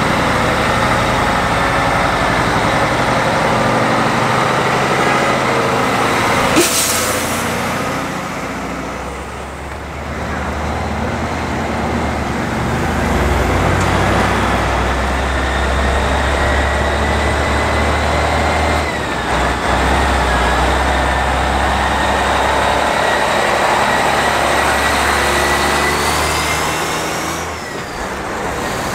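The diesel engine of a heavy prime mover running as it slowly pulls a B-double race car transporter past, with a low rumble that swells for several seconds midway. There is one short sharp burst about six and a half seconds in, and a faint steady high whine.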